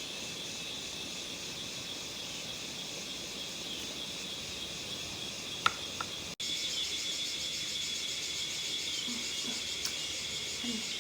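Steady high-pitched trilling chorus of insects. One sharp click comes a little past halfway, and the chorus is louder from about six seconds in.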